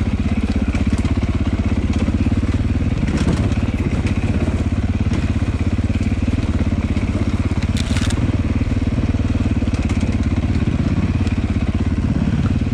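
Dirt bike engine running at a low, steady speed as the bike rolls down a snowy, rocky trail, heard from the bike itself. A few sharp knocks from the bike going over rocks and roots come through, near the start, about three seconds in and about eight seconds in.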